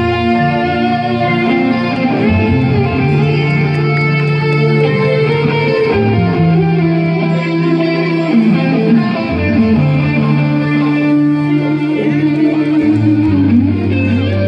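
Live band playing a slow passage: electric guitars holding sustained chords over long bass notes that change every couple of seconds.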